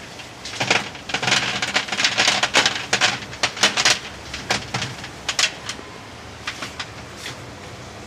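Smooth white pebbles poured out of a plastic bag, clattering against each other and onto the bare glass floor of an empty aquarium. A dense run of clatter lasts about five seconds, then a few scattered clicks follow as the stones settle and are moved by hand.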